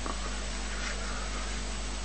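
Steady background hiss with a low, steady hum, and a faint, brief sound about a second in.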